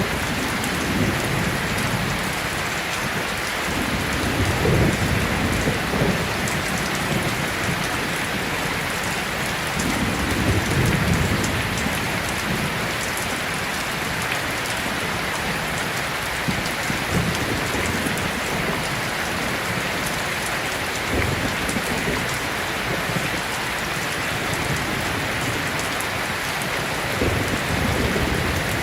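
Steady, heavy rain pattering on a surface, with a few low rumbles rising and fading underneath it.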